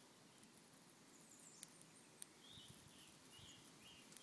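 Near silence: faint outdoor ambience with a few soft, high chirps in the second half and a couple of small clicks.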